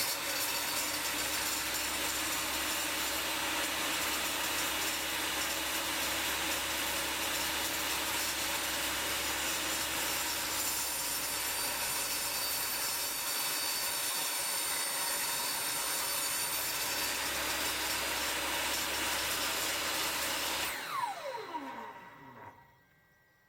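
Makita 2703 table saw running and cutting wood, a steady whine, then switched off about 21 s in, the blade spinning down with a falling whine.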